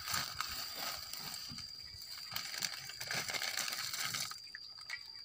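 Plastic instant-noodle wrappers and seasoning sachets crinkling as they are handled and torn open, in a run of small irregular crackles.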